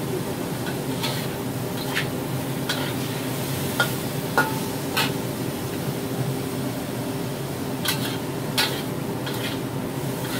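Metal spatula scraping and clinking against a wok as stir-frying ingredients are tossed, in irregular sharp knocks. Underneath runs a steady hiss of food frying in the oil.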